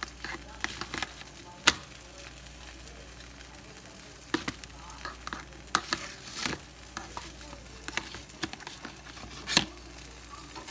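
Pancake batter sizzling and frying in a hot nonstick pan: a steady hiss broken by sharp clicks and knocks every second or so, the loudest a couple of seconds in and near the end.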